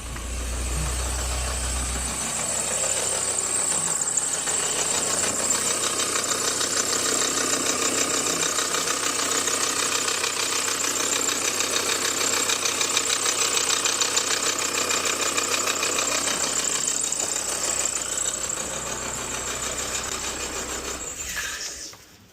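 Nissan Juke engine running with its A/C compressor engaged, the compressor clattering and knocking heavily ("like a tank") with a big squeak over it: the compressor has run out of oil and is starting to seize. It stops near the end.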